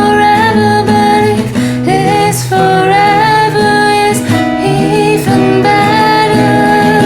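Female voice singing a slow, held melody over strummed acoustic guitar.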